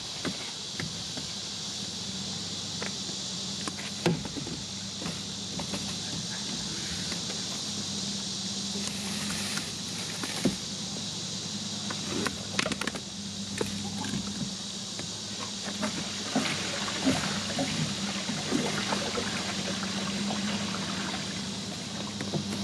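Gray water trickling and running through a corrugated RV sewer hose into a portable tote tank as the hose is lifted, with scattered small knocks from the hose being handled. A steady chirring of insects and a low steady hum sit underneath.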